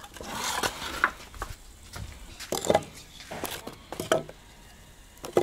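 Thin wooden boards being handled and laid into a metal mangal (grill): scattered sharp knocks and clatters of wood on wood and against the grill, about half a dozen in all.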